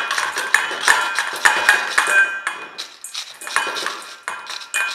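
A wooden spatula scraping sugar-coated candied ginger chews off a stainless steel mesh screen, with repeated scrapes and clinks and the pieces dropping into a stainless steel bowl that rings. Quieter for a moment a little past halfway.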